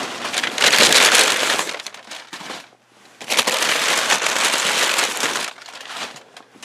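Crumpled packing paper rustling and crinkling as it is pulled aside by hand, in two long stretches with a short pause between them, quieter near the end.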